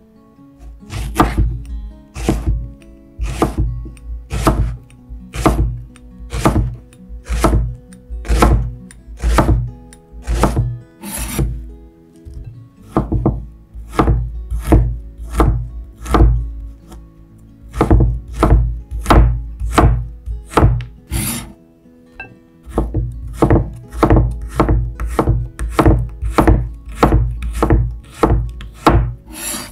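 Chef's knife slicing ginger and garlic on a bamboo cutting board: steady knife strikes, each a thump on the board, roughly one to two a second, stopping briefly twice.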